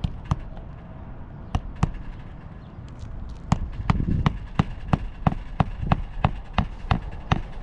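Hammer driving roofing nails into an asphalt shingle: a few separate blows, then a quick run of about a dozen strikes in the second half, roughly three a second.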